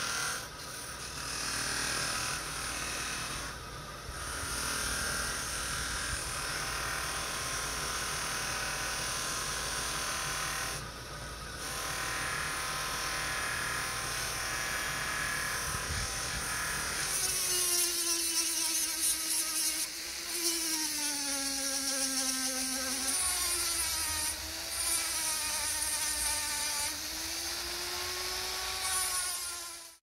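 Electric buffing wheel running with a steady motor whine while metal coffee-grinder parts are polished against the cloth wheel. From about halfway the whine wavers up and down in pitch as the part is pressed on, and the sound cuts off suddenly at the end.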